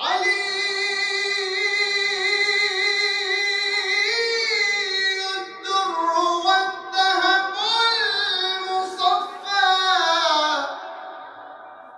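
A man's solo voice singing a devotional praise song: one long held note, then winding, ornamented phrases that fade away near the end.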